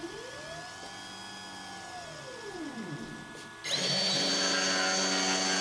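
CNC stepper motors whining up and then down in pitch as the gantry makes a positioning move. About three and a half seconds in, a DeWalt DWP611 trim router switches on, spins up quickly and runs loud and steady at about 9,900 rpm.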